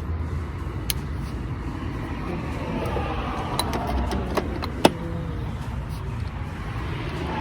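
Steady low rumble of nearby vehicle engines, with a few short sharp metallic clicks, the loudest just before the five-second mark, from a wrench working on the semi truck's battery terminals.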